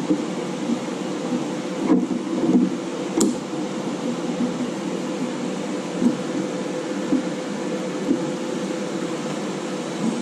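Steady fan hum with a few short, light clicks and knocks as screw-down hold-down clamps are set onto steel plates on a steel welding table.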